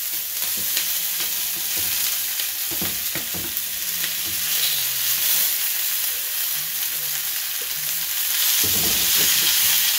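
Sliced onions, bell peppers and courgette sizzling in smoking-hot cooking oil in a frying pan, a steady hiss. A few light knocks are heard as the vegetables are pushed off a wooden board with a spatula.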